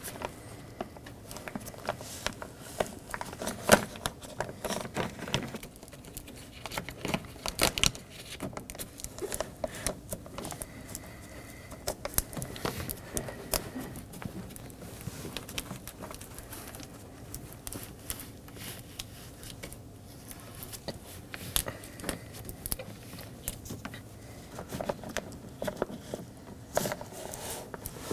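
Plastic door vapor barrier crinkling and rustling as it is pressed onto the inner door panel by hand, with scattered small clicks and taps throughout.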